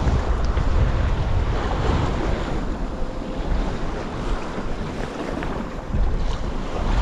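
Wind buffeting the microphone over waves sloshing and splashing around a kayak in rough sea, easing slightly midway and picking up again about six seconds in.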